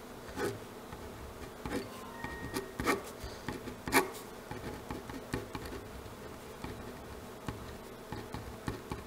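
Marker pen scratching and squeaking on paper in short strokes as arrows and words are written, with a few louder clicks.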